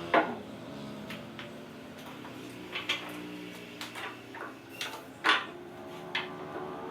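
About eight sharp knocks and clicks scattered irregularly over quiet background music, the loudest near the start and about two-thirds of the way in.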